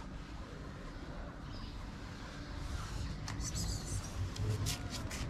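Steady low background rumble, with a cluster of short scratchy rustles from about three seconds in.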